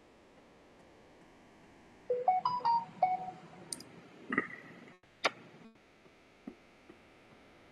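Short electronic jingle of about six quick beeps at different pitches about two seconds in, then three sharp clicks over the next few seconds, over faint steady hiss.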